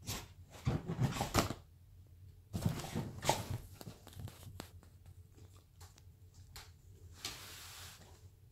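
A small dog scrabbling and digging at sofa cushions in a fit of zoomies: its paws and body scuffle and rustle on the upholstery and cushions in several bursts, about a second in, around three seconds in, and in a longer rustle near the end.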